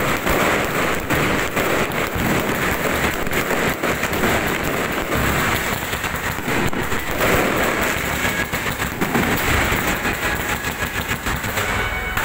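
Fireworks going off in a dense, unbroken crackle of many rapid pops, steady in loudness throughout.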